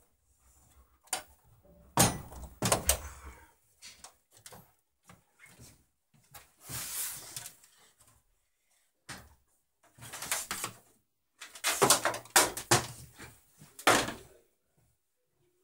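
The plastic back cover of a Panasonic LCD TV being taken off and handled on the workbench: irregular knocks and plastic clatters, with a longer scraping slide about seven seconds in.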